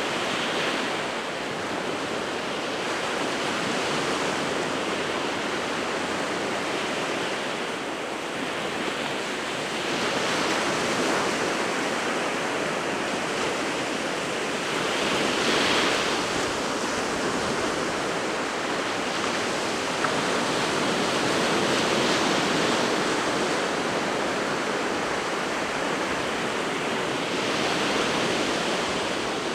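Winter Sea of Japan surf: waves breaking and washing on the shore in a continuous rushing wash that swells every few seconds as each wave comes in.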